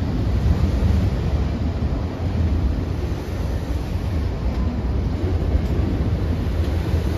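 SEPTA Silverliner IV electric multiple-unit commuter cars passing close by: a steady low rumble with a rush of air buffeting the microphone.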